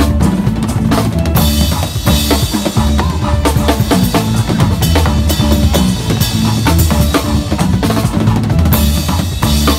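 Acoustic drum kit played in a fast solo: rapid strokes across snare, toms and bass drum. Cymbal crashes wash over the strokes about a second and a half in, again around three and a half seconds, and near the end.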